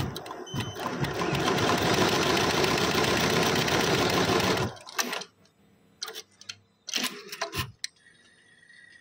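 Richpeace embroidery machine stitching at speed, a dense fast mechanical rattle that stops abruptly after about four and a half seconds. A few separate clicks and clunks from the machine's mechanism follow.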